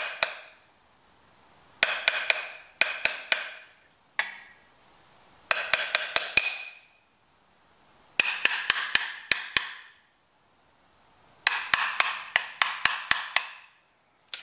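Hand ratchet clicking in short bursts of several sharp metallic clicks, about six bursts with pauses between, as the bolts of the rear main seal retainer are tightened.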